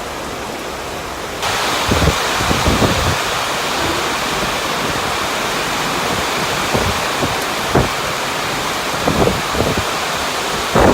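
Heavy rain falling, a steady hiss that gets suddenly louder about a second and a half in, with scattered low thumps.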